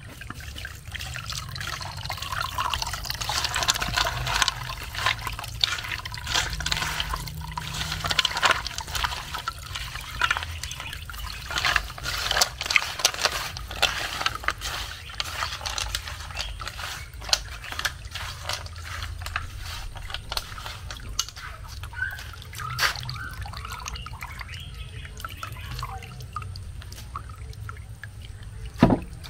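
Palm nut pulp squeezed and worked by hand in a perforated aluminium pot, the extracted palm fruit juice dripping and trickling through the holes into a plastic bowl, wet squelches mixed with drips. The squelching is busiest in the first half, and a sharp knock comes near the end.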